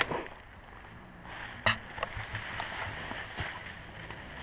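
An idling dirt bike engine cuts off right at the start. Faint rustling of dry leaves follows as a fallen dirt bike is hauled upright, with one sharp knock about a second and a half in.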